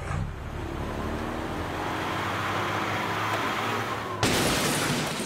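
Bus engine revving up, its pitch rising as it accelerates, then about four seconds in a sudden loud crash, as of the bus smashing into the mansion's iron gate.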